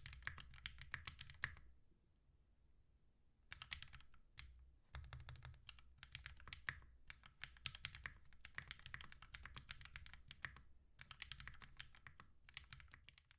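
Typing on a Mode65 mechanical keyboard fitted with GMK keycaps: quick runs of key presses, with a pause of about two seconds shortly after the start.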